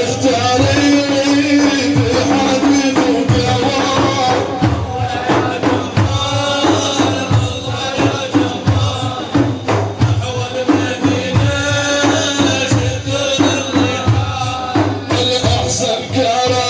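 Arabic religious praise music: a steady hand-percussion beat, tambourine-like, under a melodic line.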